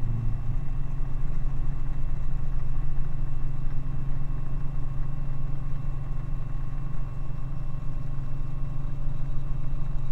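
Helicopter in flight heard from inside the cabin: a steady low drone of engine and rotor with a faint higher whine.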